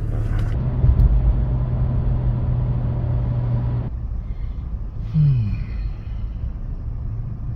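Car cabin rumble: engine and road noise with a steady low hum, which cuts off abruptly about four seconds in to a quieter background with a brief falling tone.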